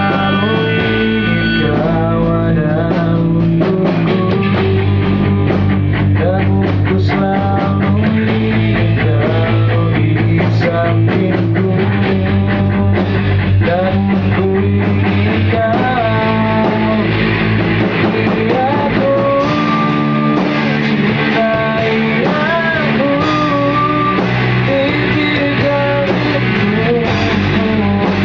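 Rock band rehearsing a song live: guitars, bass and drums playing steadily, with a gliding melody line over the top.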